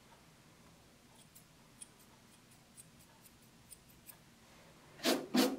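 Curved grooming scissors snipping a Golden Retriever's leg feathering: faint, short clicks scattered irregularly. Two louder brief sounds come near the end.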